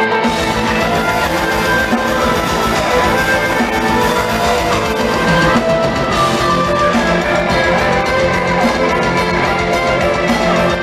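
Progressive extreme metal band playing live: distorted electric guitars and fast drums under a sustained melodic violin line.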